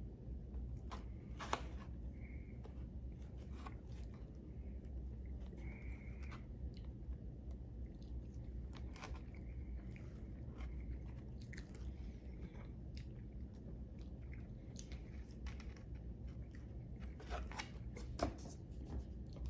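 A person chewing and biting food close to the microphone, with crunching and many small mouth clicks. Two sharper clicks stand out, about a second and a half in and near the end.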